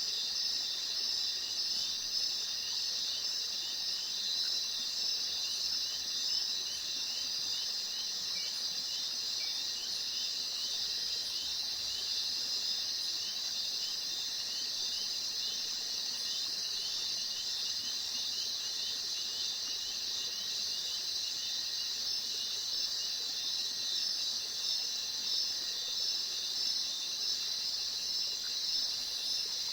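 Insect chorus sound effect: a steady, dense high-pitched trilling with a regular chirp repeating a few times a second.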